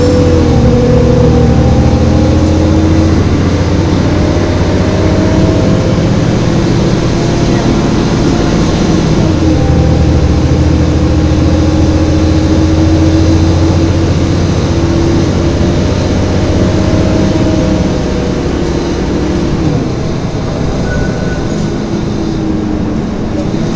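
Volvo B7LA articulated bus heard from inside while driving: a steady diesel drone with whining drivetrain tones that slowly rise and fall with speed. It eases off briefly about a third of the way through, and again slightly for the last few seconds.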